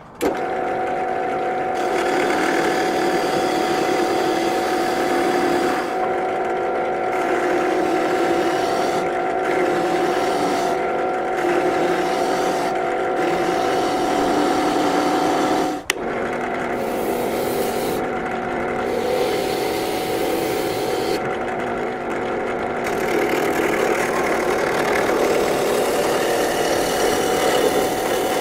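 Power woodworking machine running steadily, with its cutting hiss dropping away and returning several times as the wood is fed through; the sound breaks off abruptly about halfway through and then carries on.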